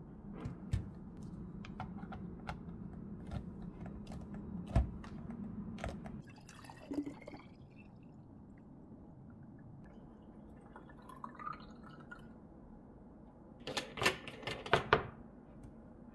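Lemon juice poured from a glass jug into a small glass bottle, then a few sharp clicks and clinks near the end as plastic screw caps are put on the glass bottles. Before the pour there are scattered light clicks over a low steady hum, which stops about six seconds in.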